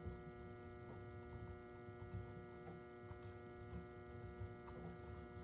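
Low, steady electrical hum made of several constant tones, with faint soft wet handling sounds of painted cotton fabric being rubbed in a tray of water.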